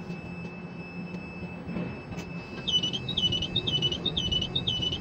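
Ship-to-shore quay crane machinery hums steadily. About two and a half seconds in, its motion warning beeper starts: high-pitched beeps about twice a second, while the drive machinery grows louder as the trolley starts to travel with the spreader.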